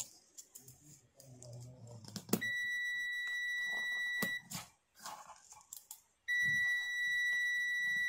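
ANENG Q1 digital multimeter's continuity beeper sounding two steady high beeps of about two seconds each, a few seconds apart, with short clicks around them. Each beep signals that the rotary switch's common pin has closed onto the pin under the probe.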